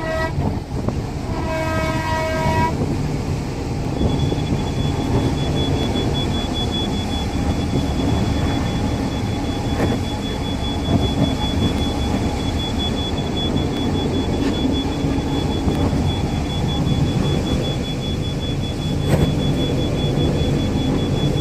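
Indian Railways diesel tower wagon running at about 100 km/h, heard from inside the cab as a steady rumble of engine and wheels on rail. Its horn sounds once, for just over a second, about a second and a half in, and a steady high-pitched tone runs from about four seconds in.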